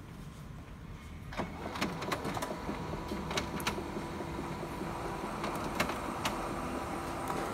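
HP Color LaserJet Pro M479 colour laser printer starting a print job: about a second and a half in its motors start up into a steady whir, with scattered sharp clicks from its paper-feed mechanism.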